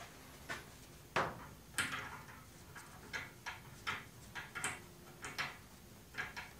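Shop towel scuffing and rustling as it wipes a freshly soldered wire joint clean, in short, irregular strokes with light knocks and taps in between.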